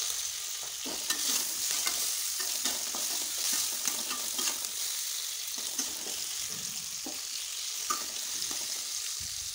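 Capsicum, tomato and onion frying in oil in a pan with a steady sizzle. A spatula stirs them, scraping and clicking against the pan every second or so.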